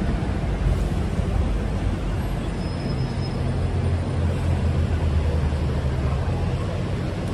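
Busy city street traffic: a steady low rumble of vehicle engines and tyres, the engine hum growing a little heavier in the middle.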